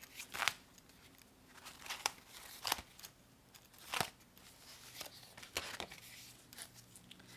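Paper pages and envelopes in a ring-bound collage journal being turned and handled: about half a dozen short, soft rustles and flicks.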